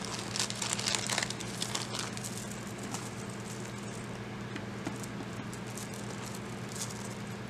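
Light handling noise of a beaded necklace: small clicks and rustles as the plastic beads are moved about, heaviest in the first couple of seconds. A faint steady low hum runs underneath.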